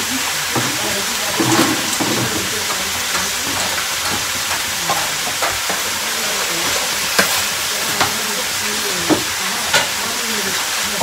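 Oil sizzling steadily as food fries in a wok over a wood fire, with scattered short clicks and clinks of a spoon stirring against the pan.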